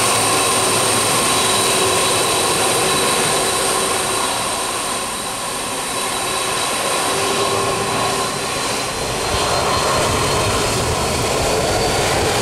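Boeing 767's twin turbofan engines whining as the airliner taxis round in a turn on the runway: steady high whine tones over a rushing hiss, with a deeper rumble building in the last few seconds and the pitch starting to rise at the very end.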